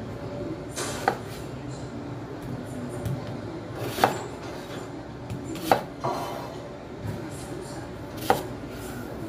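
Kitchen knife cutting a red onion on a thick wooden chopping board: four sharp knocks of the blade striking the board, a second or two apart, with softer cutting sounds between them.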